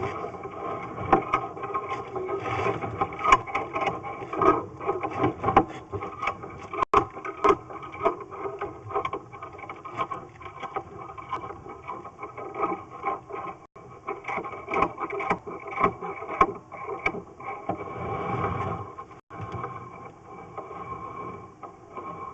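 Sewer inspection camera's push cable and head scraping and rattling through the drain line, with a continuous squeal and many sharp clicks and knocks.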